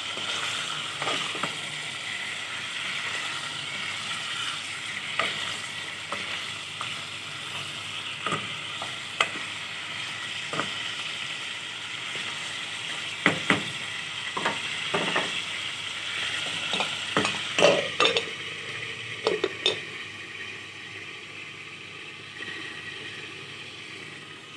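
Chicken pieces sizzling in hot oil in a non-stick karahi, with a wooden spatula knocking and scraping against the pan as they are stirred. The knocks come thickest in the second half, and the sizzle grows fainter near the end.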